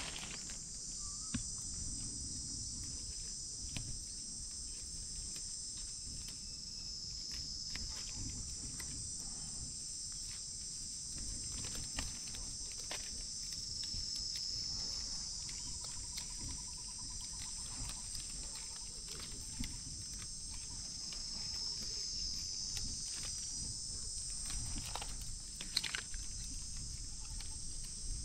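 A steady high-pitched insect chorus. Scattered sharp clicks and crackles of movement through dry brush sound over it.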